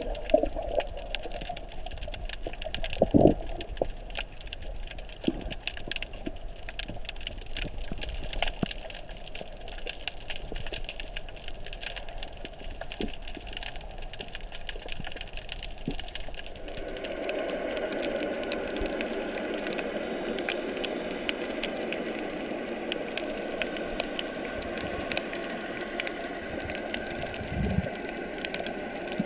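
Underwater ambience heard through a GoPro's waterproof housing: a dense, irregular crackle of tiny clicks, with a louder knock about three seconds in. A steady droning sound joins a little past halfway.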